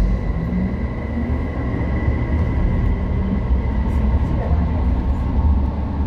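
Rubber-tyred Busan Metro Line 4 train running through a tunnel, heard from inside the car: a steady low rumble with a thin, steady high whine from its drive.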